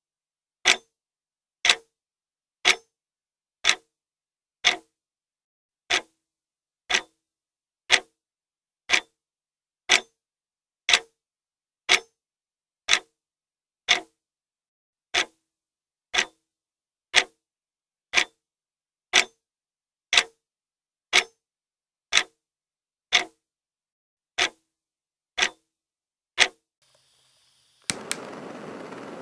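A clock ticking steadily, one sharp tick about every second. Near the end the ticking stops and a steady rushing noise starts abruptly.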